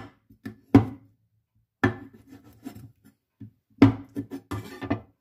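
Kitchenware knocking and clattering in several sharp knocks, roughly a second or two apart with a quick cluster near the end, each ringing briefly, as dishes and utensils are handled while preparing chicken drumsticks.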